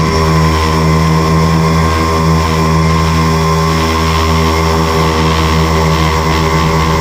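Tricopter's electric motors and propellers running steadily in flight, a constant buzzing hum with a few evenly spaced pitches that waver slightly as the throttle changes.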